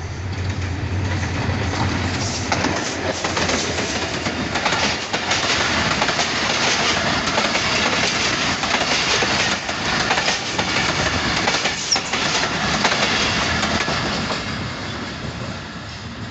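Passenger train passing close by at speed. A low locomotive hum is heard at first, then the coaches go by with wheels clattering over the rail joints, and the sound fades as the train moves away near the end.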